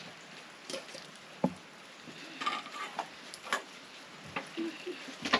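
Irregular light knocks and clinks of cooking pots and utensils being handled, with one louder knock about a second and a half in.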